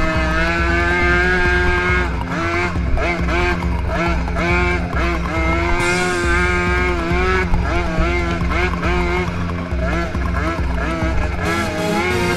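Background music with a steady beat and a gliding lead melody.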